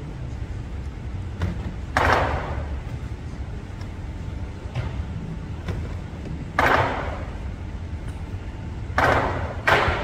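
Lion dance percussion during a pause: single crashing cymbal clashes a few seconds apart, each ringing out for about half a second, over a low steady hall rumble. A quick pair of hits comes near the end.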